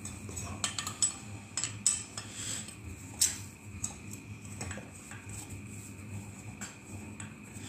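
Small screwdriver working small countersunk screws out of a stove fan's metal motor bracket: scattered light metallic clicks and clinks, the sharpest about three seconds in.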